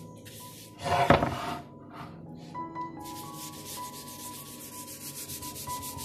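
Wad of tissue rubbing across a bamboo cutting board in quick back-and-forth strokes, with one loud thump about a second in. Soft background music underneath.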